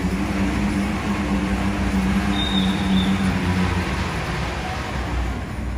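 Engine of a horse-pulling dynamometer truck running steadily as a team of draft horses drags it: a low rumble with a steady hum that fades about three and a half seconds in. A brief high tone sounds about two and a half seconds in.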